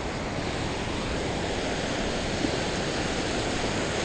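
Ocean surf washing in over a shallow sandy beach flat: a steady rush of small breaking waves and foam.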